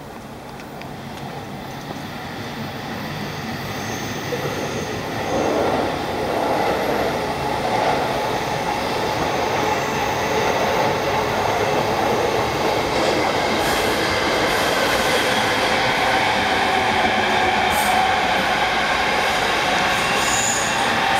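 Electric commuter train running past on the tracks close by, with rumble and wheel noise. It grows louder over the first five seconds or so, then runs steadily loud.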